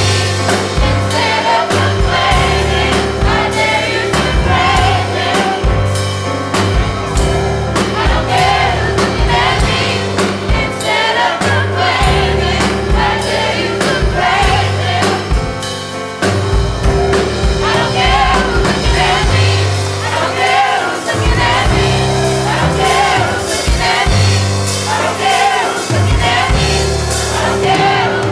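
Gospel choir singing over a band with bass, drums and a held keyboard tone.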